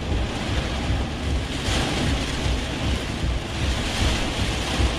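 Steady rushing noise with an uneven low rumble inside a vehicle's cab as it drives during a storm: road and engine noise mixed with wind.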